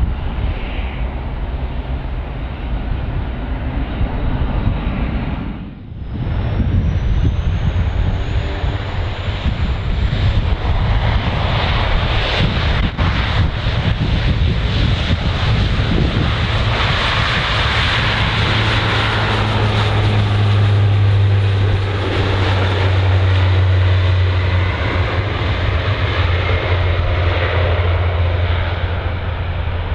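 Jet airliner engines running as the aircraft passes the airfield: a steady, loud noise with a low hum. It drops briefly about six seconds in, then builds to its loudest in the second half and eases slightly near the end.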